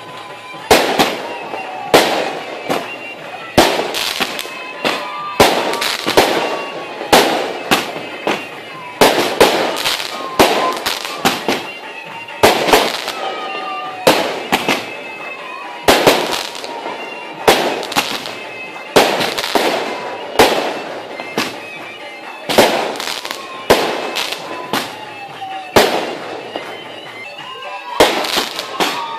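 Aerial fireworks shells bursting in a steady run, a sharp bang about every second, each one trailing off before the next.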